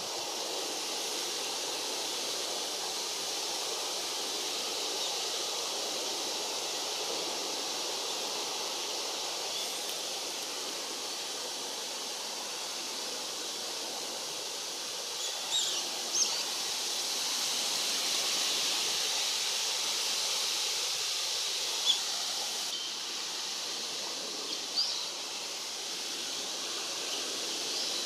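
Wind blowing through tree branches, a steady rushing hiss. A few brief high bird calls cut through it about halfway in and again near the end.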